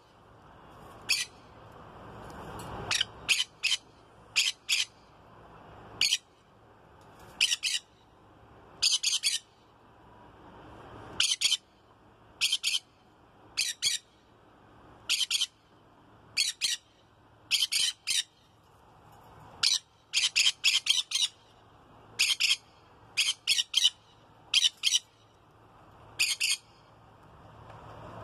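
Pet conures calling: loud, high-pitched squawks in quick bursts of two to five calls, a burst every second or two.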